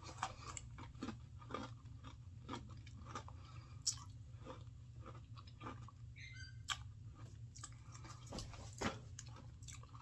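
Faint, irregular chewing and crunching of an Oreo cookie whose cream is filled with popping candy, with scattered sharp clicks.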